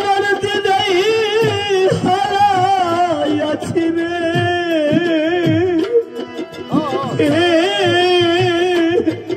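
A male folk singer holds long, wavering melismatic notes of a Bengali bicched song, over harmonium and regular hand-drum strokes.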